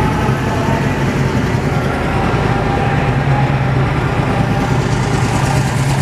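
Steady background din of a large, crowded exhibition hall: a constant low drone with indistinct crowd chatter.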